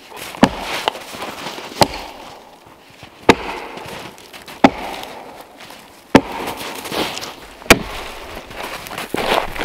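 Axe chopping a snow-covered fallen log: six sharp strikes about one and a half seconds apart, with softer crunching between them.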